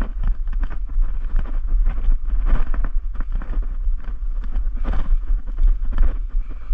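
Wind and handling rumble on a body-worn camera microphone, with the rustle and crunch of footsteps through dry leaf litter and twigs; a few louder crunches stand out, one about two and a half seconds in and another near five seconds.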